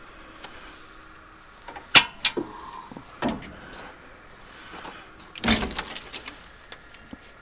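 Sharp metallic knocks and clanks from handling the skid steer's body: one loud knock about two seconds in, two more soon after, then a quick cluster of clicks and rattles past the middle.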